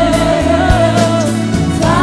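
Gospel worship song: a singer holds one long, wavering note over a band with drums, and a new sung phrase begins near the end.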